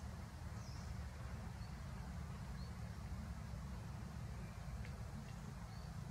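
Steady outdoor background noise with a low rumble, and a few faint, brief high chirps now and then.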